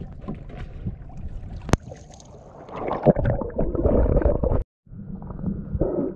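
Water splashing and sloshing, louder about three seconds in, with a single sharp click a little before two seconds. Near the end the sound drops out briefly and turns muffled and dull, heard from under the water.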